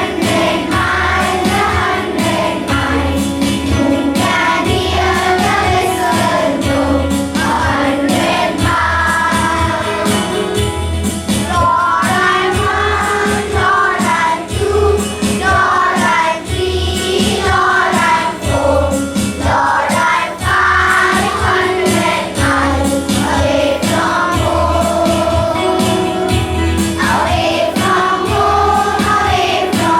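A group of voices singing a prayer song together over musical accompaniment with a steady low beat.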